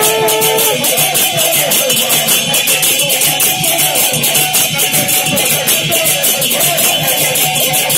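Live stage music led by small hand cymbals struck in a fast, steady rhythm. A long held note ends under a second in, and other pitched music continues beneath the cymbals.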